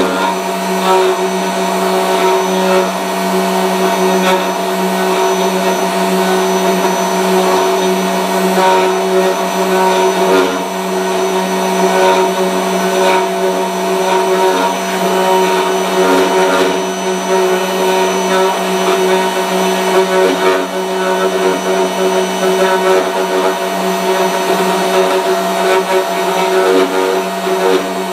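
Router motor on a gunstock copy-carving machine running steadily at high speed, a constant whine with a hiss as its cutter carves an English walnut stock blank. The loudness rises and dips slightly as the cutter is moved through the wood.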